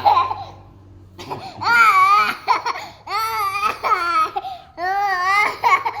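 Young child crying in several long, high-pitched wails, fussing at being massaged.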